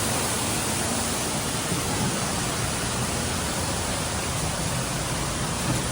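Steady, even rushing noise with no pitch and no distinct events.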